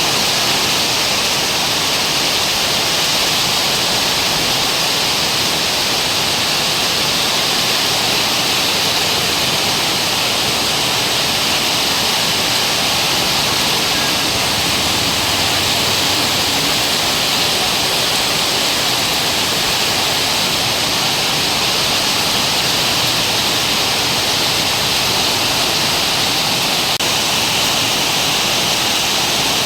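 Heavy rain pouring down in a steady downpour, an even hiss that holds at the same level throughout.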